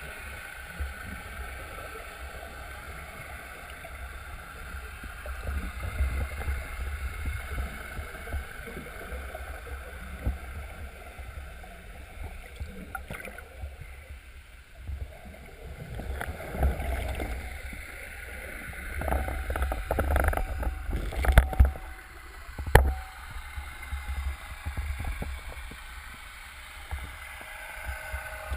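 Water sloshing and gurgling over a low rumbling noise. It swells twice, and there are two sharp knocks about three-quarters of the way through.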